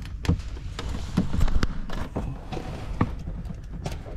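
Irregular light taps, clicks and knocks of hands and gear being handled, loudest about a second and a half in.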